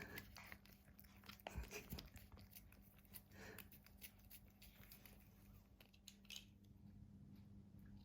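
A cat licking and smacking at a squeezed tube of lickable puree treat: faint, irregular wet mouth clicks, a little denser in the first few seconds.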